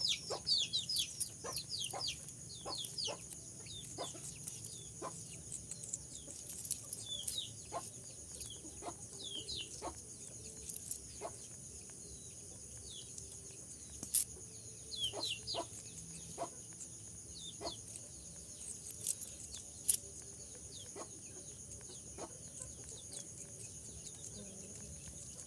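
Bird chirping in short, high, falling chirps that come in clusters, with scattered sharp clicks and a steady high-pitched whine underneath.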